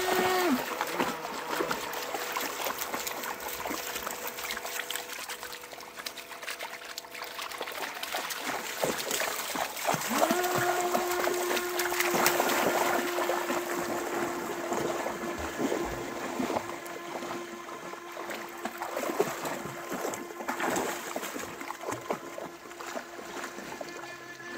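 Radio-controlled jet boat's motor whining on the water: a short rev at the start, then a long steady whine from about ten seconds in. Dogs splash through the shallows, loudest around the middle.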